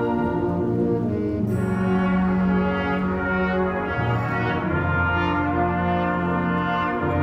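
A concert wind band playing held chords with the brass to the fore, the harmony moving to a new chord every second or two.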